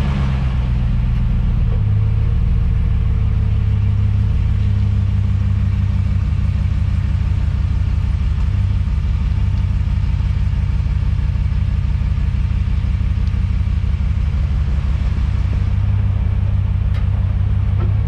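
Steady low rumble of a Gen 1 Ford Raptor under way, picked up under the truck at the front leaf spring hanger, where a clunk on acceleration and deceleration is being hunted after fitting Deaver K80 springs. No distinct clunk stands out above the rumble.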